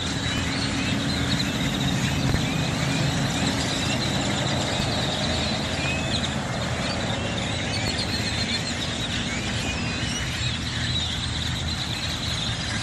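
A huge flock of birds chirping all at once, a dense unbroken chatter of short calls, over a steady low engine rumble.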